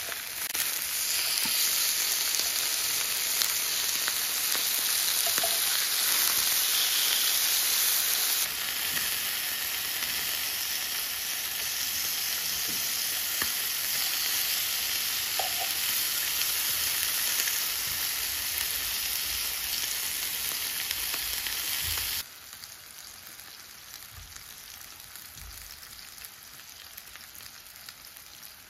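Pork belly strips sizzling on a hot tabletop grill pan, a steady dense fry with a few light clicks. The sizzle drops suddenly to a quieter level about three quarters of the way through.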